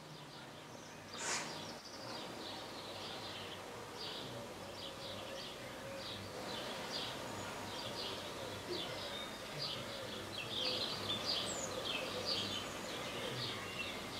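Faint birdsong: many short, high chirps repeating throughout, with one brief burst of noise about a second in.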